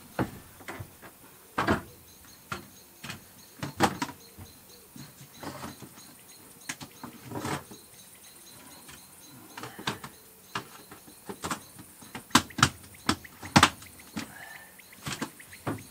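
Irregular knocks and clunks of fishing gear being stowed in the cargo area of a van, hard items set down and shifted against the van's floor and sides, with a cluster of sharper knocks near the end.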